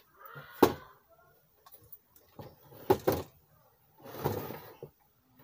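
Metal chassis of an Ahuja SSB80M amplifier being turned over and set down on a wooden workbench. There is a sharp knock just under a second in and a double knock about three seconds in, with scraping and rustling between.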